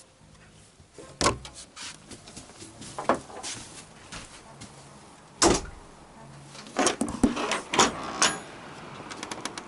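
A few separate knocks, the loudest about five and a half seconds in, then a quick run of clicks and taps near the end.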